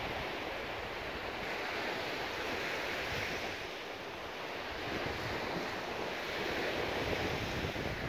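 Sea waves washing onto a beach, the surf noise swelling and easing, with wind rumbling on the phone's microphone.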